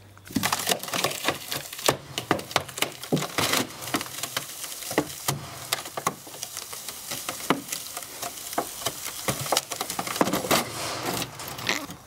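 Drink fridge cabinet's sheet-metal shell and foam insulation cracking, popping and tearing as a 2-ton pneumatic ram forces it apart: a dense, uneven run of sharp cracks.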